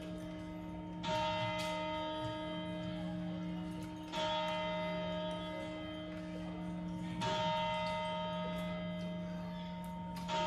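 A clock bell striking the midnight New Year chimes, four strikes about three seconds apart, each note ringing on until the next.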